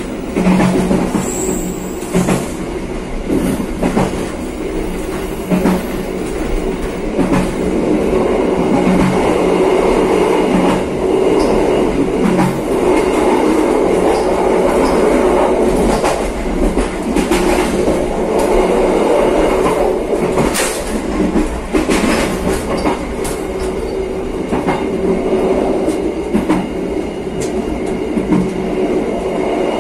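Passenger train running along the track, heard from inside its rear coach: a steady rumble of the wheels on the rails with frequent irregular clicks as they pass over rail joints.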